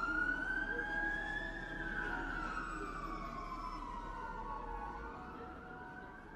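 A slow, siren-like gliding tone with overtones: it rises for about a second and a half, falls for several seconds, and starts to rise again near the end, growing gradually fainter over faint steady background tones.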